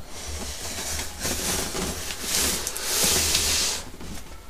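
Large cardboard monitor box being handled and turned over, its cardboard rubbing and sliding, with a louder scraping rub from a little past two seconds to nearly four seconds. A steady low hum lies underneath.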